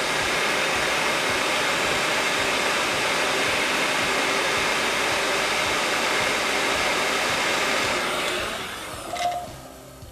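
Heat gun running at full temperature, a steady rush of blown hot air, heating a right-angle SMA adapter so its joint will take solder. About eight seconds in it is switched off and winds down.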